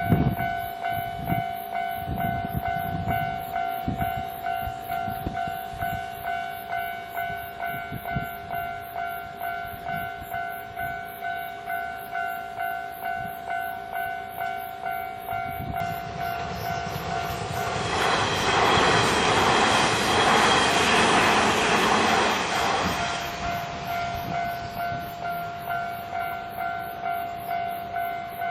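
Japanese level-crossing alarm ringing its fast, even, repeating ding throughout. A Kintetsu train's wheels clatter over the crossing in the first few seconds, and about two-thirds of the way in another train passes with a rush that swells and fades over about five seconds.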